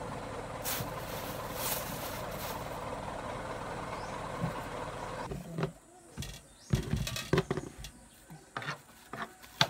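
A steady motor-like drone stops suddenly about five seconds in. After it come plastic bag rustling, knife scraping and a few light knocks as a root crop is peeled by hand.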